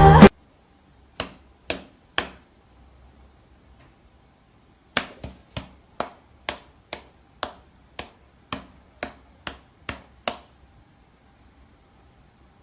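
Sharp clicks or taps: three about half a second apart, then after a pause a steady run of about a dozen at roughly two a second.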